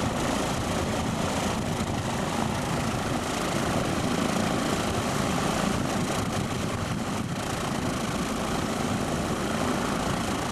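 Piper Cherokee 150's four-cylinder Lycoming engine idling steadily with the propeller turning while the plane stands on the ramp.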